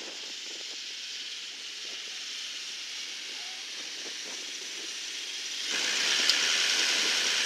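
Steady hiss of surf breaking on a beach, growing louder about six seconds in, with one sharp click shortly after.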